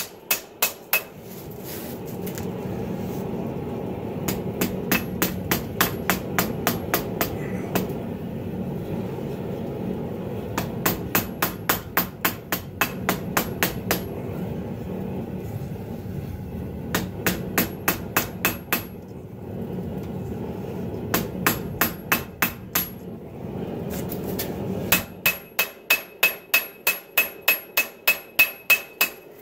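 A hand hammer forging hot 80CrV2 knife steel on a 66 lb cast steel anvil, drawing out the blade's tip. The blows come in quick runs of ringing strikes with short pauses between them, over a steady low rushing noise that stops near the end.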